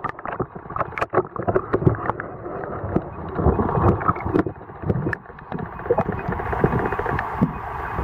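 Muffled underwater noise picked up by a submerged waterproof compact camera: a low, dull rush of moving water dotted with frequent irregular clicks and knocks, with the high end cut off.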